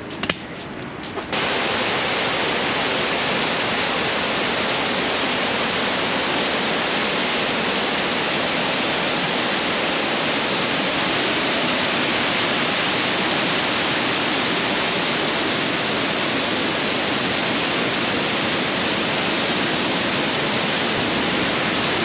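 Bousra Waterfall in heavy flow: a loud, steady rushing of falling water that starts abruptly about a second in, after a quieter moment, and holds unchanged.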